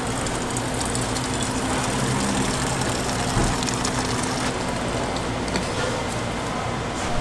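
Water running from a stainless-steel water urn's tap into an aluminium pot, a steady splashing stream, over a steady low background hum.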